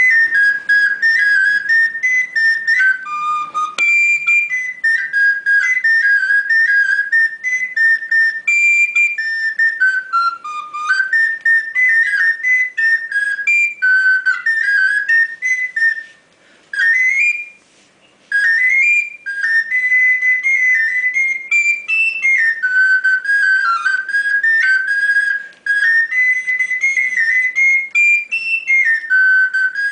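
A small recorder played solo: a high melody of short, quick notes, pausing briefly about sixteen seconds in.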